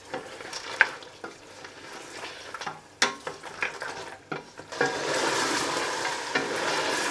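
Beef pieces frying in a stainless steel pot, stirred with a wooden spatula: scattered knocks and scrapes of the spatula against the pot, then a steady sizzle that grows louder about five seconds in.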